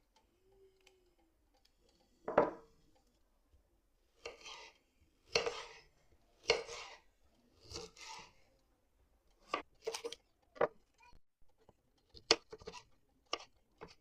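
Handling noises: a sharp knock, then several short scraping strokes, then a quicker run of sharp clicks and taps.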